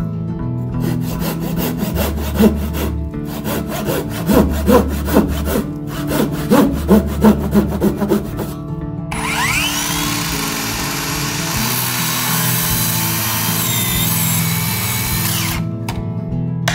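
Japanese handsaw cutting a notch into the edge of a pine stair tread in runs of quick back-and-forth strokes. About nine seconds in, a power tool spins up with a rising whine, runs steadily for about six seconds, then stops.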